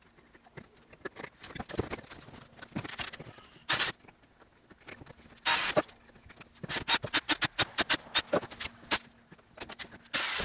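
Hand-tool work in a workshop: irregular clicks and taps with a few short rasping bursts, over a faint steady hum.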